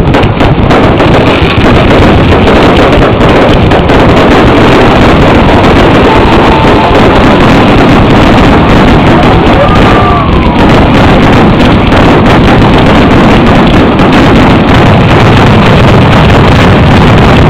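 Fireworks barrage: rapid explosions merge into a continuous, overloaded roar on the microphone, with faint whistles rising through it twice.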